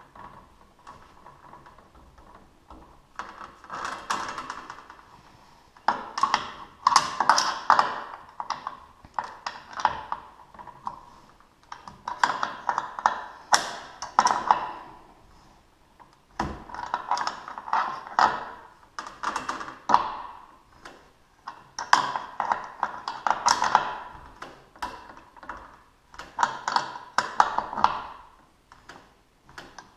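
Bursts of rapid metallic clicking and tapping from hand tools working on a garage door opener's drive chain to adjust its tension, about ten bursts of one to two seconds each with short pauses between.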